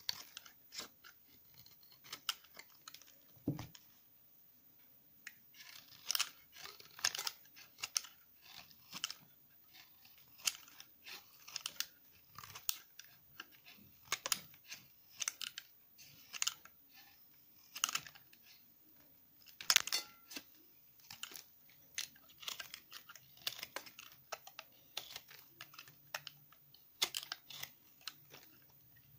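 Knife blade shaving slices off a block of bar-soap remnants pressed together: a crunchy scrape with each cut, the cuts coming irregularly, often about one a second, with quiet gaps between, the loudest about two-thirds of the way through.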